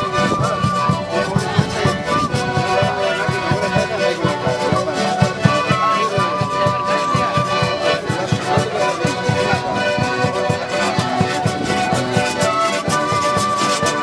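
Live traditional band music: an accordion carrying held melody notes over an upright bass and a steady, even beat.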